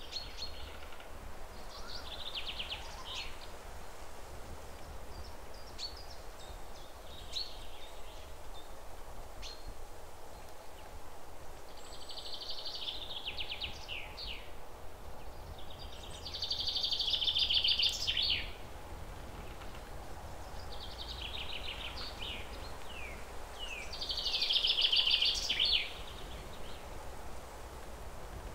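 Small birds chirping in short bursts, with quick falling chirps and two longer, louder trills, over a steady low hum.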